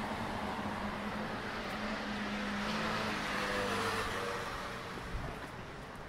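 Road traffic noise from the adjacent street, with a motor vehicle passing that swells about three to four seconds in and then fades. A single short tap sounds about five seconds in.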